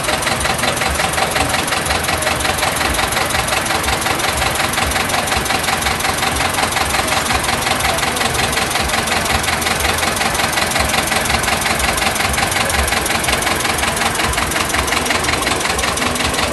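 Vintage tractor engine running steadily at low revs with a fast, even knock, close by, as it tows a heavy parade float at walking pace.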